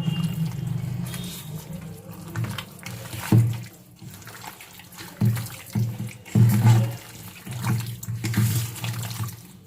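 Hands squishing and kneading mutton pieces in a wet marinade of yogurt, mustard oil and spices: an irregular run of wet squelches.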